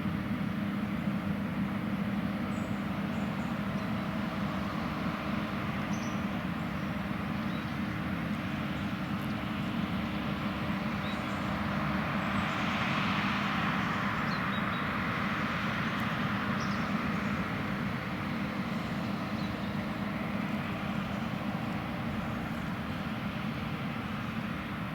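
John Deere X9 1100 combine harvester running steadily while cutting and threshing oilseed rape: a continuous engine drone under a hiss of crop and machinery. The hiss grows louder about halfway through, then eases off.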